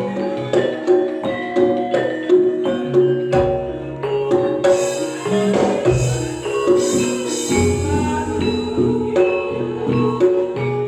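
Campursari music: a Javanese ensemble with gamelan-style metallophones ringing out struck notes over a steady drum beat.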